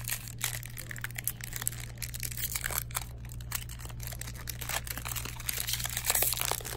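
A trading-card pack's foil wrapper crinkling and crackling as it is torn open and handled, with cards slid out of it. It is loudest about six seconds in.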